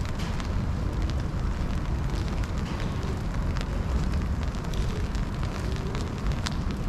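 Steady rain, with scattered drops ticking irregularly close by over a constant low rumble.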